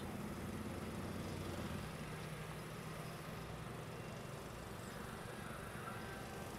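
An engine running steadily at a distance, with a low hum that eases off a little about two seconds in.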